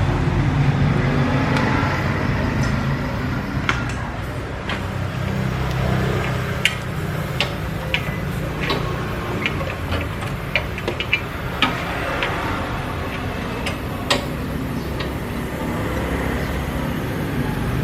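Scattered sharp metallic clicks and taps of hand tools against car suspension parts, over a steady low rumble.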